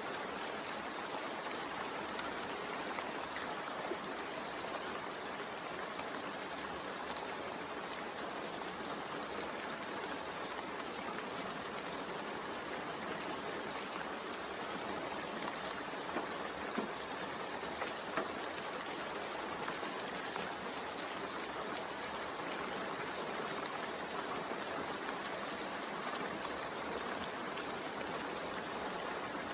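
Steady rain falling, with a few louder drops near the middle.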